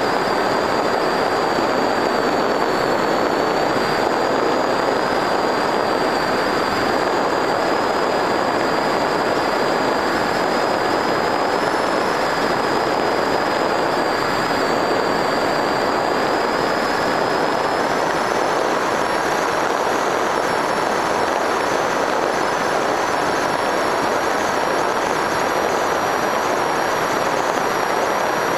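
Electric RC plane in flight, heard from on board: a steady rush of propeller and wind noise with a thin high motor whine that rises slightly in pitch a little past halfway.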